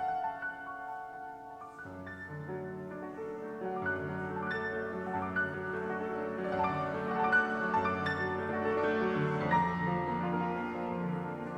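Slow instrumental keyboard music: a melody of single notes over low held bass notes that come in about two seconds in.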